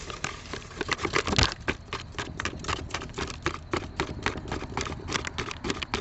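Dry refractory mix poured from its bag into a metal coffee can, rattling and pattering in quick irregular spurts of several ticks a second.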